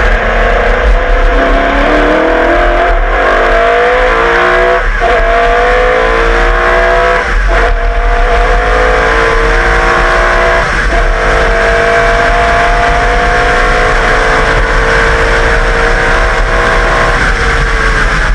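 Holden Commodore Group A V8 race car accelerating hard, its engine pitch climbing and breaking for quick upshifts about 5, 7.5 and 11 seconds in, then holding high and steady at speed.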